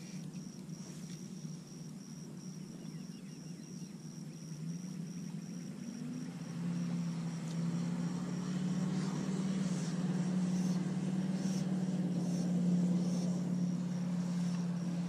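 A motor's low, steady drone that rises in pitch and grows louder about five or six seconds in, then holds. A thin, steady high insect buzz runs behind it for the first half.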